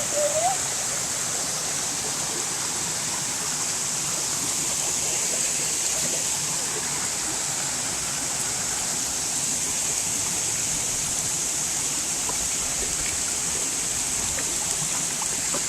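Steady rushing of a stream and waterfall, an even wash of water noise.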